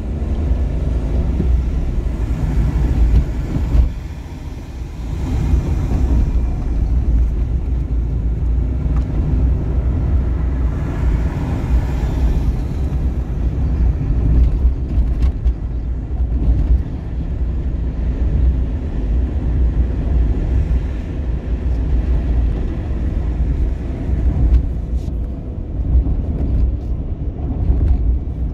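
Steady low rumble of a car driving along a street, heard from inside the cabin: engine and tyre noise, with a hissier rush of road noise swelling twice.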